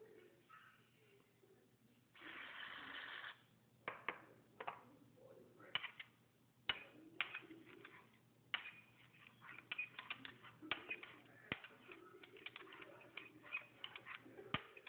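Homemade shaving-cream-and-glue slime being squeezed and kneaded by hand, giving irregular sticky clicks and small pops that come thicker in the second half. A brief hiss lasts about a second, about two seconds in.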